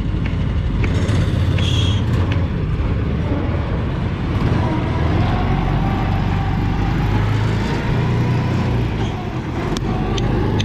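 A 420cc small petrol engine running steadily under load, driving an amphibious ATV boat along a paved road through its belt drive.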